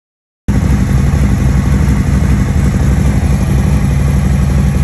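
Harley-Davidson Road Glide's Milwaukee-Eight V-twin idling steadily, beginning suddenly about half a second in. Its valve train is freshly fitted with new pushrods, tappets, tappet cuffs and roller rocker arms.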